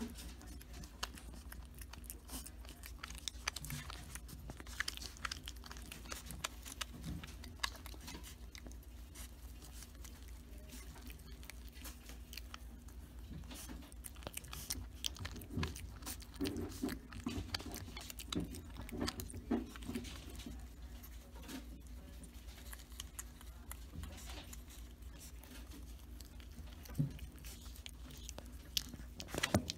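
Young groundhog (woodchuck) chewing and nibbling leafy greens: many small, crisp clicks of bites and chewing, over a steady low hum.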